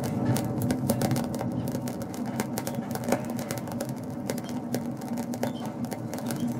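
Scorched, alcohol-soaked grapes crackling with frequent irregular small pops and clicks just after their flame has gone out, over a steady low hum.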